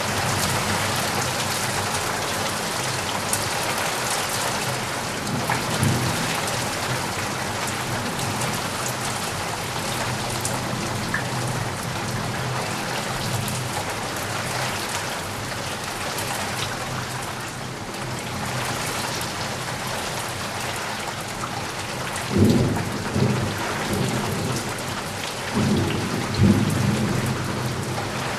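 Steady heavy rain with low rolls of thunder, a faint one early and two louder ones near the end.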